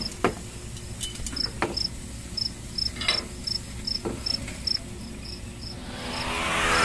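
Cricket chirping steadily in a high, even rhythm, about two or three chirps a second. A few knocks sound over it, the first as the metal grill lid is shut, and music swells in near the end.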